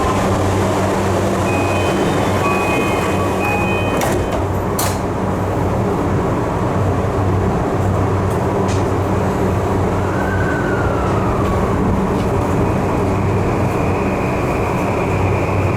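Tokyu 3020 series commuter train running, heard from inside the car: a steady loud rumble and hum. Two sharp knocks come about four to five seconds in, and a faint high whine sets in past the middle.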